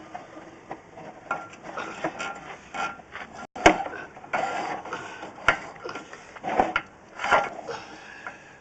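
Footsteps and scuffing with irregular knocks and rubbing from the handheld camera, with one sharper knock a little before the middle.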